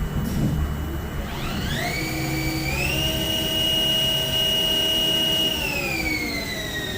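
Haas ST-30 CNC lathe spindle whine rising in pitch as the spindle spins up, holding steady at speed for a couple of seconds, then falling as it slows down, over the machine's low hum.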